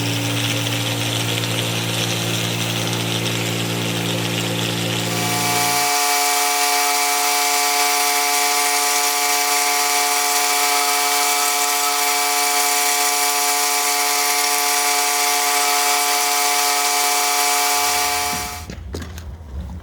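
Pressure-washer-driven rotary surface cleaner equipment running: a steady low hum with hiss that switches about five seconds in to a higher, steady whine with strong spray hiss, then stops shortly before the end.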